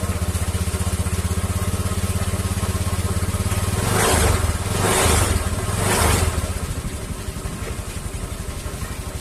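Honda Vario 150 eSP scooter's single-cylinder engine catching and idling, with three short throttle blips about four, five and six seconds in. At idle there is a squeal from the CVT area, the fault being checked.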